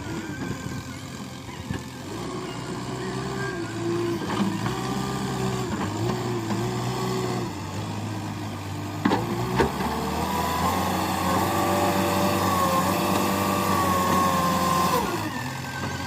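JCB 3DX Eco backhoe loader's diesel engine running under working load. About ten seconds in it revs up and holds higher, then drops back near the end, with a couple of sharp knocks around nine seconds in.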